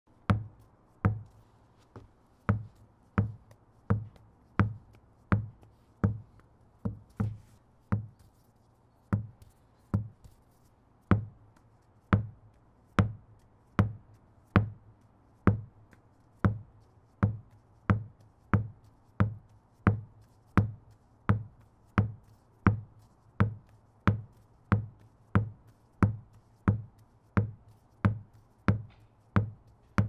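Tennis ball bouncing over and over on a wooden deck, a steady run of sharp knocks about three every two seconds, each with a low, hollow thud from the boards.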